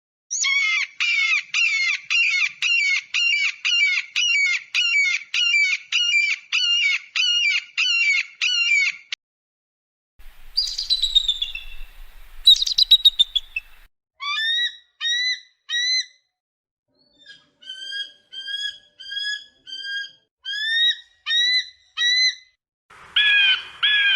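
Eagle calls from several separate recordings. First a steady series of about two calls a second for some nine seconds; after a short gap, a few seconds of calls falling in pitch; then spaced short calls rising in pitch, and harsher calls starting near the end.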